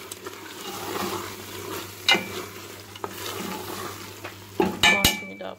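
Spoon stirring beef keema and potatoes in a hot pot, the mixture sizzling, with a few sharp knocks of the spoon against the pot, the loudest near the end.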